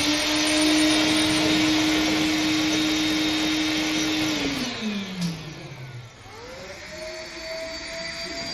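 Handheld mini vacuum cleaner running with a steady motor whine and rushing air. About four seconds in it winds down with a falling pitch, then spins back up to a steady, higher-pitched whine.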